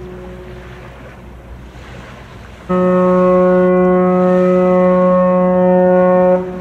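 The whistle of the bulk carrier MISAT K sounds one long, steady blast of about three and a half seconds, starting nearly three seconds in and cutting off just before the end. At the start, the tail of an earlier blast fades over wind and water noise.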